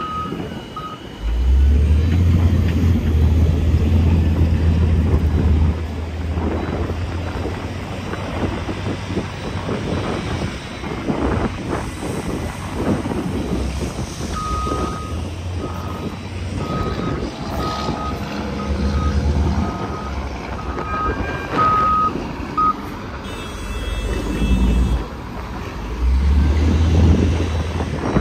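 A heavy diesel truck running at a gravel loading site, its engine loudest for a few seconds near the start and again near the end. A reversing alarm beeps steadily, briefly at the start and again for about eight seconds in the middle, about three beeps every two seconds.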